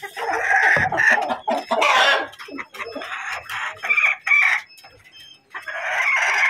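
Light Brahma chickens clucking and calling at the feeder: a run of loud calls, several seconds long, with a short lull about five seconds in before another call.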